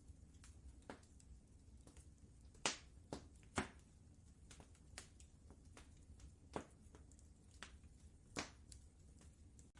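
Wood fire crackling in a fireplace: irregular sharp pops and snaps, the loudest about a third of the way in and again near the end, over a low steady rumble.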